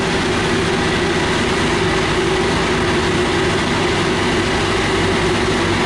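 A high-speed passenger ferry's engines running steadily while the vessel is still moored and about to cast off: a loud, even drone with a constant hum.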